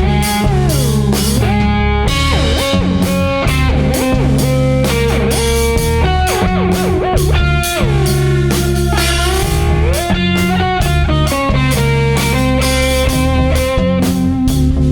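Instrumental passage of a small live band: baritone guitar and drum kit with trombone, playing a bluesy rock groove. The lead line makes long downward pitch slides about a second in and again past the middle.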